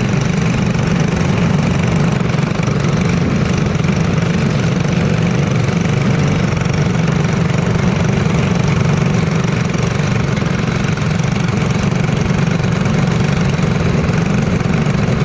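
Small race-car engines idling steadily while the cars sit stopped on the track, the nearest one loud and close to the microphone with a low, even note.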